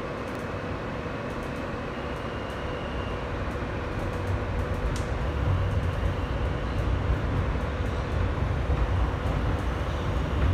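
Inside an R160B New York subway car pulling out of a station: a steady hum at first, then the low rumble of wheels and motors grows louder from about four seconds in as the train picks up speed. There is a single sharp click about five seconds in.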